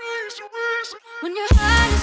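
Background dance-pop music: a lone melody line with no drums or bass, then the full beat with heavy bass comes back in about one and a half seconds in.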